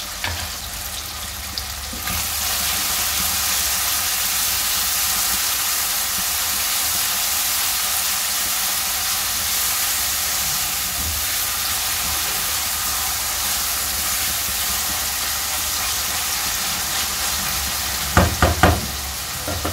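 Chopped onions and tomatoes sizzling in hot oil in an aluminium pot, the sizzle growing louder about two seconds in and then holding steady while a silicone spatula stirs them. A few short knocks near the end.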